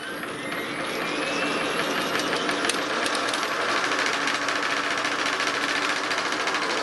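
1K62 lathe's rapid-feed motor, run from a small frequency inverter, turning the feed shaft with a steady hum and whine. The whine rises in pitch over the first few seconds as the motor speeds up, then holds steady.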